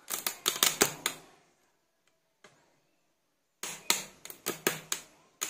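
Hard plastic clacking and clicking as plastic pegboard panels and parts of a wall tool organizer are handled. A quick run of sharp clicks comes first, then about two seconds of quiet, then another run of clicks.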